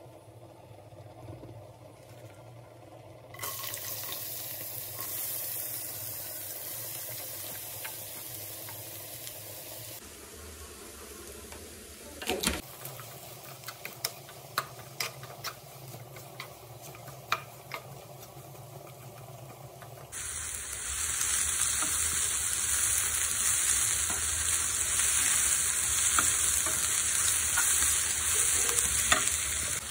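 Sliced onions sizzling in hot coconut oil in a non-stick pan, stirred with a wooden spatula that clicks and taps against the pan. The sizzle starts a few seconds in, drops back in the middle while the spatula taps most, and is loudest in the last third.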